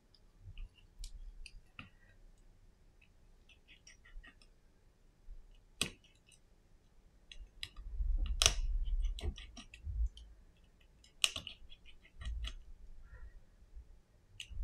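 Small scattered clicks and taps of hands handling a phone display assembly and a precision screwdriver on a silicone repair mat. There are a few sharper clicks and some soft thumps as parts are set down.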